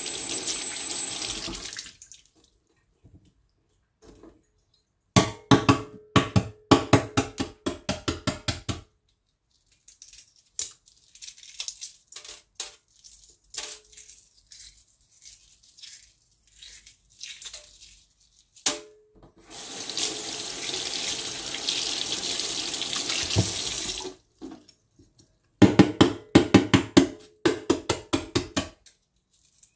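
Hard-boiled eggs being peeled at a stainless steel sink. Two bursts of rapid sharp tapping come as an egg is knocked against the sink to crack its shell, with a faint crackle of shell being picked off in between. The faucet runs briefly at the start and again for a few seconds past the middle as a peeled egg is rinsed.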